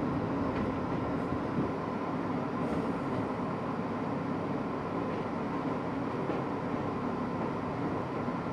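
R62A subway train running at steady speed along an elevated track, heard from inside the front of the car: a continuous rumble of wheels on rail with a faint steady whine and a few light clicks in the first few seconds.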